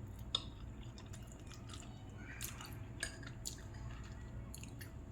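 A person chewing a mouthful of Buldak instant ramen noodles: faint, scattered wet mouth clicks and smacks.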